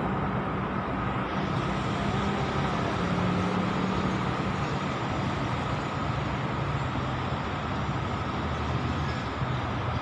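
A steady low mechanical rumble with a constant hum.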